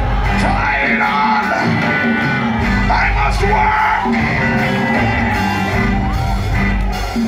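Live church praise music with steady held notes, and a congregation singing, shouting and whooping over it.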